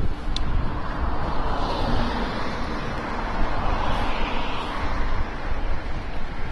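Strong gusty wind blowing across the microphone: a dense rush that swells and eases.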